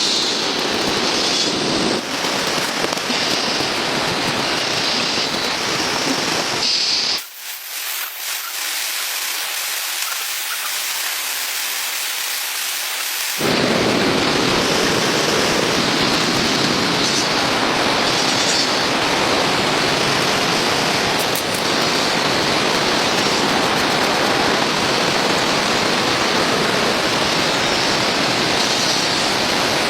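Steady heavy rain, a dense even hiss. For about six seconds partway through it thins to a higher hiss without the low rumble.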